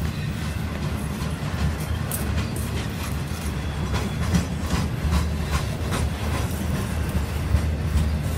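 Intermodal container well cars rolling past slowly: a steady low rumble of steel wheels on rail, with scattered sharp clicks and clacks as the wheels pass over the track.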